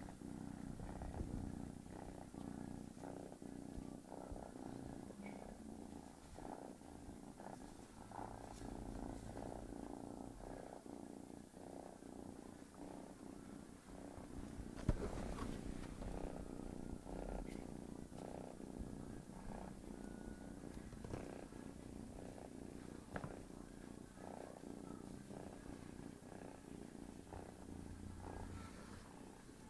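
Domestic cat purring close up, a steady low rumble pulsing in even cycles. About fifteen seconds in there is a single sharp click, the loudest moment.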